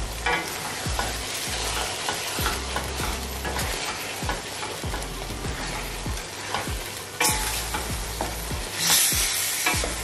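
A wooden spatula stirs and scrapes chicken masala around a stainless steel pan while the food sizzles, as yogurt is being mixed into the frying gravy. There are a few sharper scrapes in the second half.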